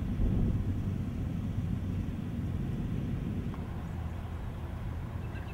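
Low, steady outdoor rumble of background noise.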